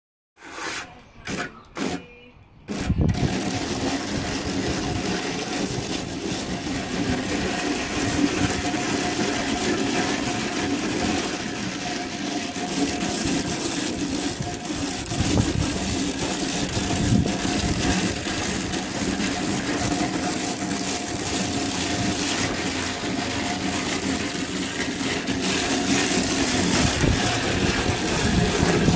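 Plastic float rubbing over freshly applied Ceresit CT 137 mineral grain-textured plaster, a steady gritty scraping as the final texturing rub is worked across the wall. A steady low hum runs underneath. The sound comes in about three seconds in, after a few short sounds.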